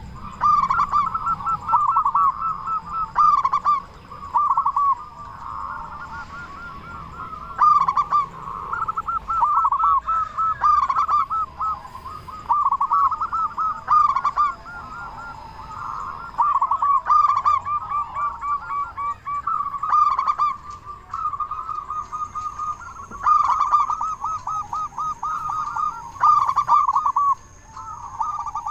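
Zebra dove (perkutut) in full song, cooing over and over in quick runs of rippling notes, with brief pauses between bouts.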